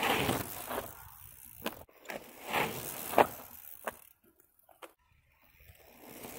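Mountain bike ridden hard through a loose dirt-and-grass corner, its knobby tyres scrubbing and sliding as the rider gets loose. A rush of tyre noise comes as it passes close in the first second, another follows with a sharp knock about three seconds in, and then the sound falls away.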